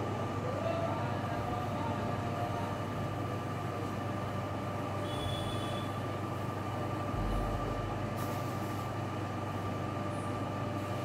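Steady mechanical hum with a constant whining tone.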